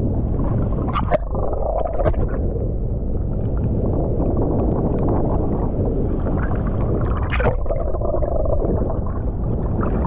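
Muffled rush and gurgle of sea water heard with the camera under the surface, with a few sharp knocks.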